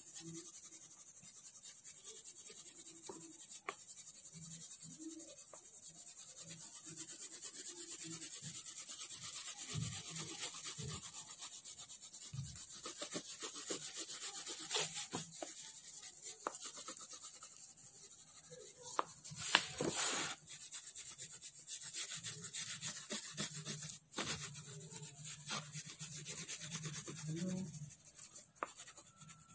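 Oil pastel stick rubbed over drawing paper in repeated coloring strokes, a hissy rubbing that swells and fades with the strokes. A louder brushing sound comes about twenty seconds in.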